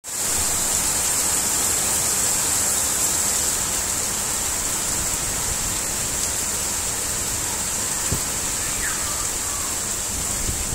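Heavy rain pouring down in a steady, dense hiss, with gusty wind rumbling underneath.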